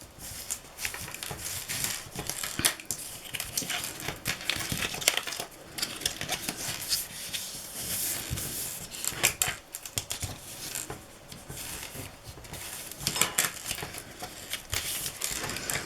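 Cardstock being handled, folded and rubbed down by hand: irregular rustling and scraping with many light taps and clicks.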